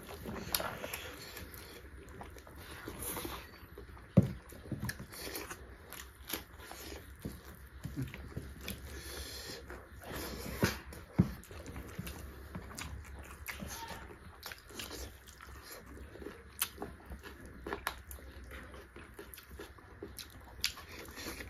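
Close-miked eating of beef curry and rice: chewing and wet mouth sounds, broken by scattered short clicks, the sharpest about four seconds in.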